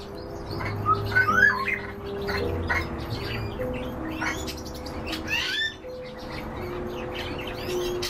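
Cage birds chirping and calling: many short rising and falling chirps, busiest a second or two in and again about five seconds in, over steady held low tones.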